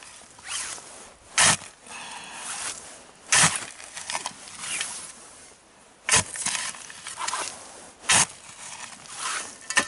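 Steel spade digging into gritty soil mixed with old wood ash and cinders: four sharp stabs of the blade about two seconds apart, with softer scraping of dirt between them.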